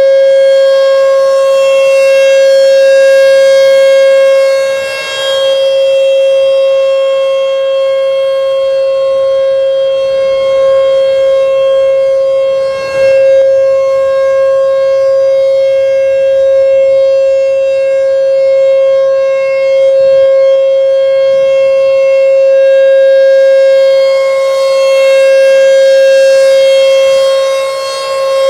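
American Signal T-128 rotating electromechanical outdoor warning siren sounding a test. It holds a loud, steady single tone, and its volume swells and fades about every eight seconds as the horn turns toward and away.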